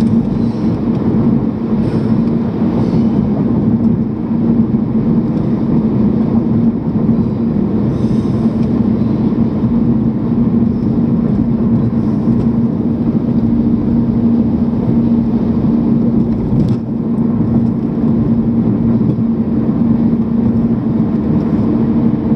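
Car driving at freeway speed, heard from inside the cabin: steady road and engine noise with a constant low hum under the sound of the tyres.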